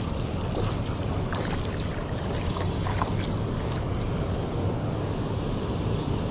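Steady rushing outdoor noise, like wind buffeting the microphone, with a few faint clicks and ticks scattered through it.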